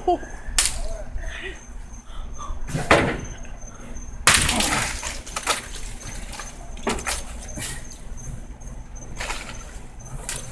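Tree branches snapping and brush rustling as they are broken and pulled down by hand. There are several sharp cracks and one longer, louder crash of branches about four seconds in.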